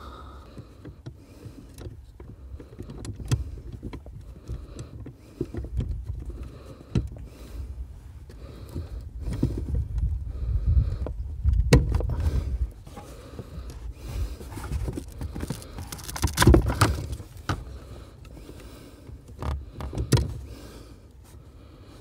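Scattered clicks, knocks and low rumbles as hands work the zip-tied clutch pedal return spring into place on a VW Golf Mk4's clutch pedal assembly, with plastic and metal parts knocking together. The loudest knocks come about 12 and 16 seconds in.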